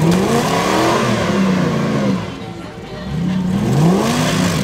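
Off-road 4x4 engine revving up and dropping back again, about four rises in pitch under repeated bursts of throttle.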